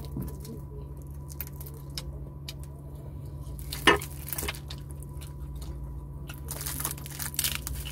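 Fingers pulling apart a crispy fried tilapia in a ceramic bowl, with scattered small crackles and clicks of skin and flesh tearing, and mouth-eating sounds. One louder smack comes about four seconds in, and a denser patch of crackling comes near the end.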